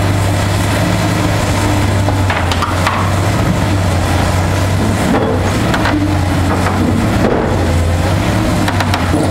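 Link-Belt hydraulic excavator's diesel engine running steadily under load, with several cracks and crunches as its hydraulic shears break into the concrete and steel of a bridge deck.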